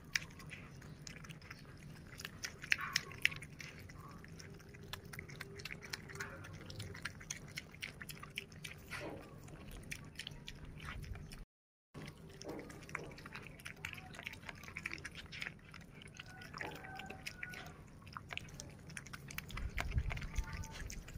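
Pig eating fried noodles: chewing and smacking, heard as a steady run of short clicks.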